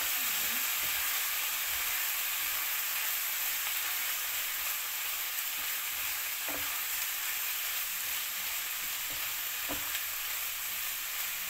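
Chicken pieces sizzling in olive oil with browned garlic and onions in a frying pan, stirred with a wooden spatula: a steady frying hiss, with two soft knocks from the stirring in the second half.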